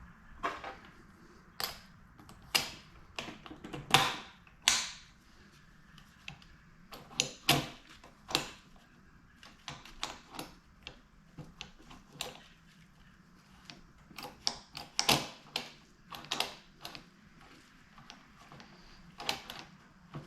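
Light metallic clicks and knocks at irregular spacing as the shift forks and shift drum are fitted into a Yamaha YZ125 crankcase and the transmission is worked by hand.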